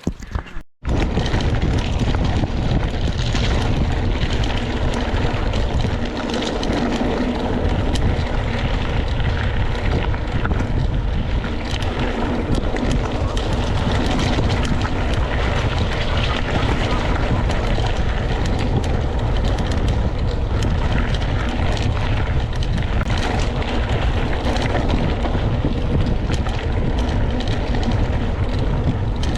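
Wind buffeting the microphone while a mountain bike is ridden along a trail, with the rough rumble and rattle of the bike over the ground; it starts abruptly just under a second in after a short gap and then stays loud and steady.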